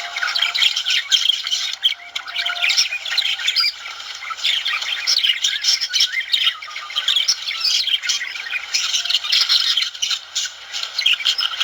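Budgerigars singing and chirping: a busy, continuous chatter of rapid warbles, chirps and squawks, with a few short whistled notes in the first few seconds.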